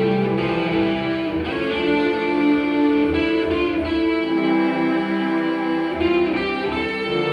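A live rock band playing, with electric guitar prominent over bass and other instruments holding long sustained notes.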